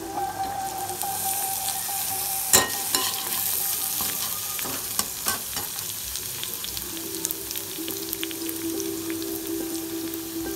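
Chopped onion, capsicum and cabbage sizzling in hot oil in a pan, stirred with a plastic perforated spatula that clicks and scrapes against the pan, with one sharp knock about two and a half seconds in.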